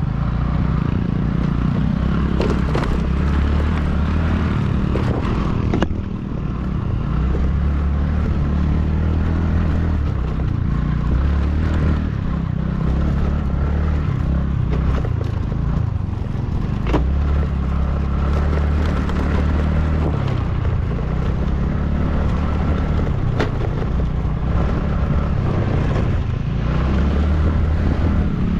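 A vehicle's engine and road rumble while riding along, steady and loud, with the low drone rising and falling and a few sharp knocks and rattles along the way.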